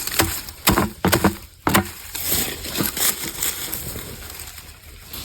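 Dry, spiny chestnut burrs cracking and crunching as they are pried open: several sharp cracks in the first two seconds, then rustling and crunching that fades.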